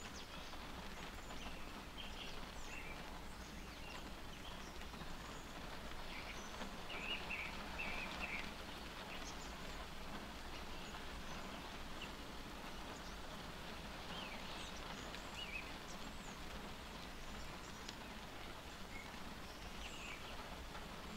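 Steady rain pattering on a car's roof and windshield, heard from inside the car. Short bird chirps come through now and then, most clearly about seven seconds in.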